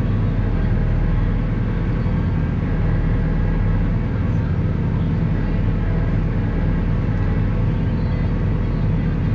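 Valtra 154e tractor's diesel engine running steadily, driving the hydraulics of the Kesla forestry crane as it swings its grapple.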